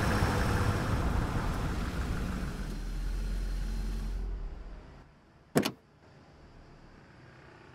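Car driving up and coming to a stop, its engine and road noise fading out about four and a half seconds in; about a second later a car door shuts with a single sharp thump.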